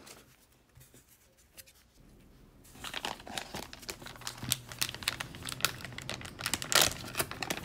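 Black plastic zip pouch crinkling and crackling as gloved hands handle and open it, a dense run of small sharp crackles that starts a few seconds in, after a near-quiet start.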